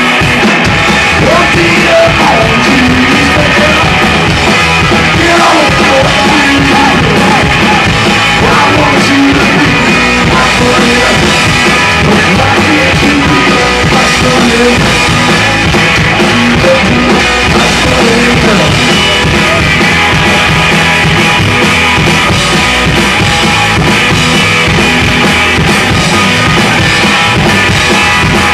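A rockabilly band playing loudly live: a Gretsch hollow-body electric guitar, a slapped upright bass and a drum kit.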